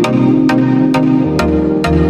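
Electronic music with a steady beat of about two strokes a second over held synth and bass notes.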